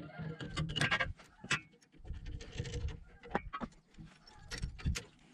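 Metal clinks, knocks and scraping of hand tools on the stone-dressing machine's disc shaft, as the shaft end is worked loose to slide off the worn cutting discs and their spacer washers. Irregular sharp clicks, with a few louder knocks about a second and a half in and near the end.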